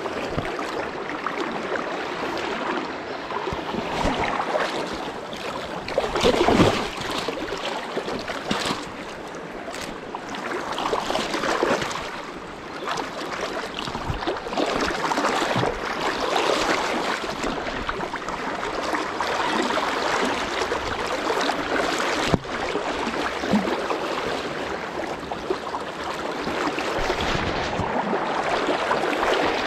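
Fast, turbulent river rushing steadily, swelling louder and softer, with a couple of sharp knocks about two-thirds of the way through.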